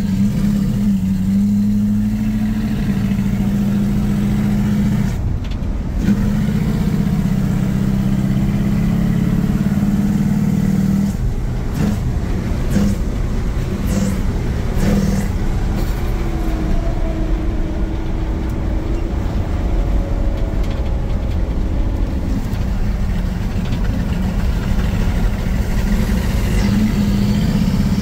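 Truck engine with a Holley Sniper throttle-body fuel injection accelerating on the road under load. Its note shifts in pitch several times, over a loud whooshing, supercharger-like air noise from the intake, which the owner puts down to the throttle body sitting too close to the intake runners.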